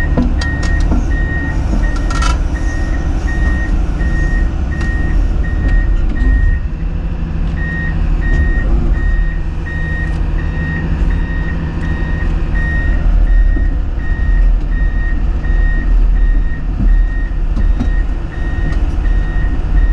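Komatsu PC210 excavator running, its diesel engine rumbling steadily under a regular high-pitched warning beep, about one and a half beeps a second, that pauses briefly about six to seven seconds in.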